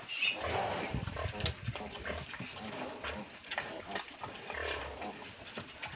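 Pigs grunting in short, scattered bursts while newborn piglets scramble about the pen.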